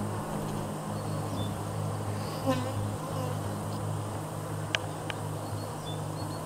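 Honeybees on the comb buzzing in a steady low hum, with a brief louder sound near the middle and two short clicks a little later.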